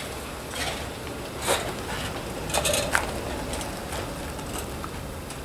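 Footsteps crunching on packed snow, a few irregular steps, over a faint low steady rumble.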